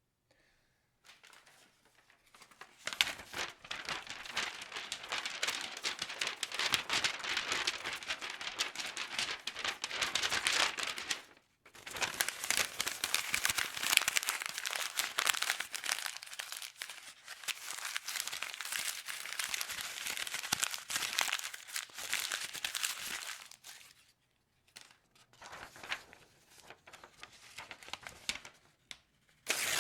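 Sheet of white printer paper being crumpled in the hands: a dense, crisp crackling that goes on in long stretches with a short break about eleven seconds in, thinning to scattered crinkles near the end, then a brief loud burst right at the end.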